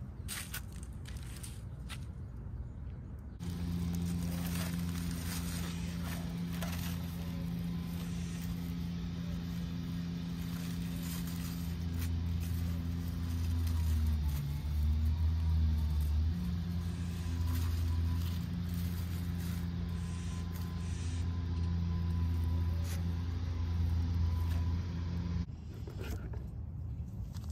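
A nearby engine running steadily with a low hum. It starts a few seconds in and cuts off suddenly near the end. Short scrapes and clicks from handling plants and stems come through around it.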